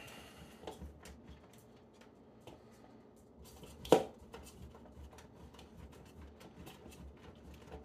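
Block of cheddar cheese being grated by hand on a handheld metal grater over a bowl: faint, repeated scraping strokes, with one sharp knock about four seconds in.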